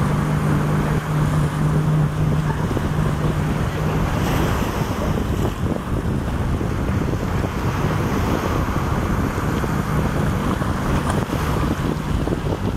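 Wind buffeting the microphone over water noise on open water, with a boat engine running steadily underneath. The engine is plainest in the first few seconds, fades, then comes back in the second half.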